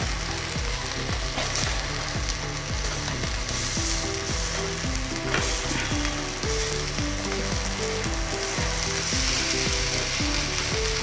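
Tandoori chicken pieces sizzling steadily in ghee in a pan on a low gas flame.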